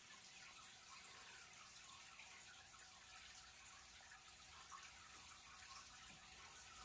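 Near silence: faint, steady trickling and dripping of water in a turtle tank.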